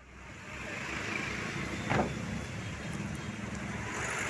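Road traffic on a highway: steady noise of passing vehicles, with a brief louder burst about two seconds in.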